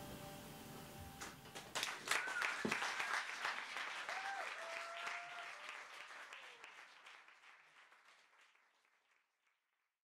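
The last sustained notes of a piano and guitar duet ring out, then an audience breaks into applause with a few calls, and the applause gradually fades away to silence.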